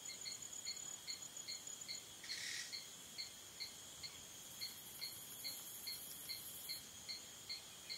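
Faint evening insect chorus: crickets chirping in a steady rhythm, about two and a half chirps a second, over a continuous high trill. A brief soft hiss about two seconds in.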